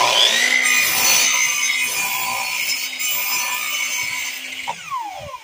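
Power miter saw running and cutting through an old pine block, the final cut that frees the truncated pyramid cap. Near the end the saw is released and its blade winds down with a falling whine.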